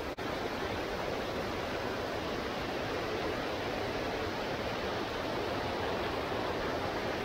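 River water pouring over a low concrete weir: a steady rushing noise with no let-up.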